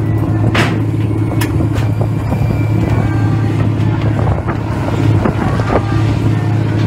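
Fishing vessel's engine and deck machinery running with a steady low hum, with scattered sharp knocks and clanks several times.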